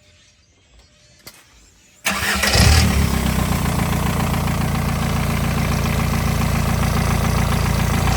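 Volkswagen ALH 1.9 TDI diesel engine cranking and starting about two seconds in, then settling into a steady idle. This is the test run after the A/C compressor clutch pulley, whose worn bearing was whining, has been replaced.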